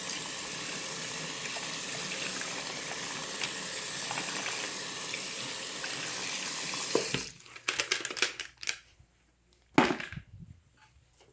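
Water running from a sink tap in a steady rush while a fidget toy is rinsed under it; the rush stops suddenly about seven seconds in. A few clicks and knocks follow as the toy is handled, with one sharper knock near the end.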